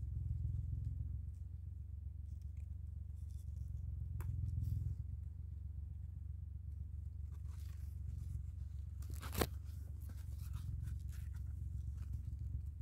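Cucumber side shoots being pinched and snapped off the stem by hand, with leaf rustling: a short sharp snap about four seconds in and a louder crisp snap past the middle, over a steady low rumble.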